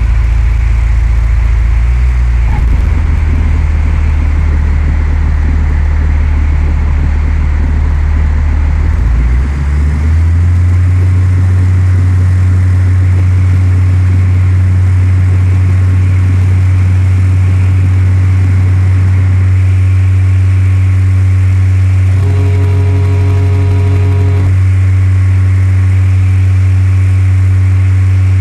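Cessna 172's four-cylinder piston engine and propeller droning loudly in the cabin, the pitch stepping up about ten seconds in as the power changes. A steady tone sounds for about two seconds near the end.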